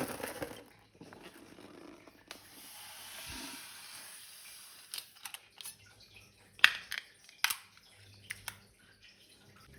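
Wet slime squishing and dripping as it is squeezed out of a balloon, with a soft hiss and a few sharp sticky clicks in the middle.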